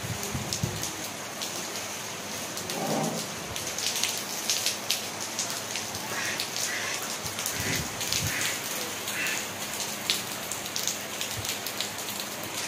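Steady rain falling, with many separate raindrops striking close by.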